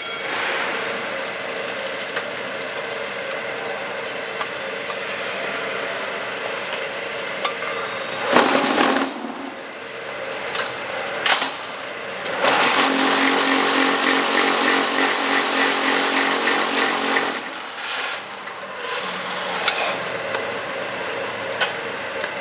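QTJ4-26A semi-automatic concrete block making machine running through a forming cycle: steady mechanical noise with a few knocks about ten seconds in, and a louder, steady buzzing for about five seconds midway as the mould is vibrated to compact the concrete.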